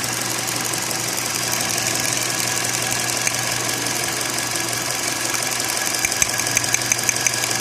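Four-cylinder engine of a 2016 Nissan Sentra running steadily at idle with a misfire. The number 4 ignition coil is leaking its current to the engine block instead of sending it all to the spark plug.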